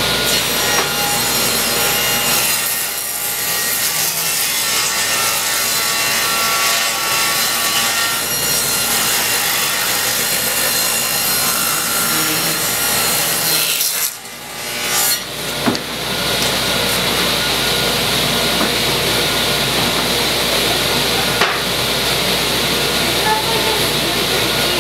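Table saw ripping rough-sawn birch boards lengthwise: the spinning blade cuts steadily through the wood for the first half. About halfway through the sound briefly drops away, then the saw runs on at a steady level.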